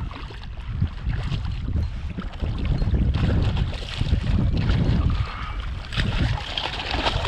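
A hooked bluefish thrashing and splashing at the water's surface as a hand reaches in to grab it, in irregular splashy bursts over a steady low rumble of wind on the microphone.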